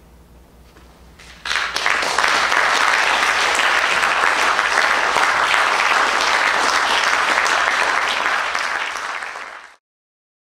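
Quiet room tone with a low hum, then an audience breaks into applause about a second and a half in. The applause holds steady and is cut off abruptly near the end.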